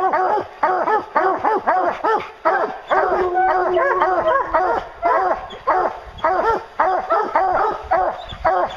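A pack of hounds barking at the tree, short barks coming fast and overlapping, with one long drawn-out bawl about three seconds in: the tree bark of hounds that have a black bear treed.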